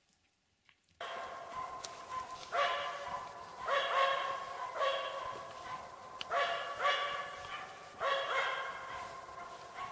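Finnish spitz bird dog barking in a steady, repeated series, about one bark a second: the insistent barking with which a spitz marks a forest bird it has treed.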